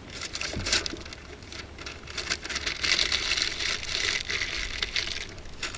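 Gift wrapping paper being torn and crumpled by hand as a present is unwrapped, a dense crackling rustle that grows heavier about halfway through.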